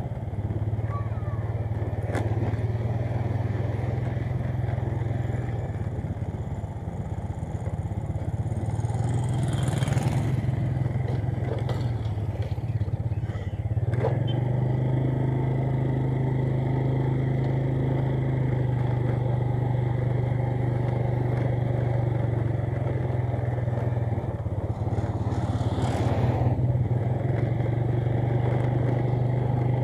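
Small motorcycle engine running at a steady speed, a constant low drone, with two brief whooshes, one about a third of the way in and one near the end.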